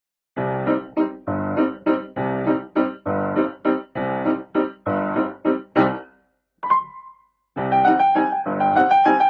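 Background music: piano notes played in a steady rhythm, breaking off briefly about two-thirds of the way through before resuming.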